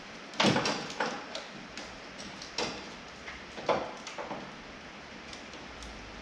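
Irregular sharp knocks and clatters, about half a dozen, from tools or parts being handled during car repair work; the loudest comes about half a second in.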